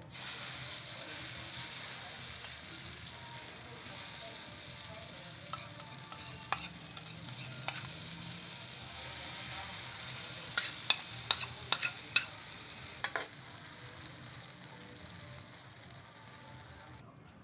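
Eggplant frying in hot oil in a pan: a steady, dense sizzle that starts suddenly and stops near the end. Several sharp clicks of a utensil against the pan come in the middle.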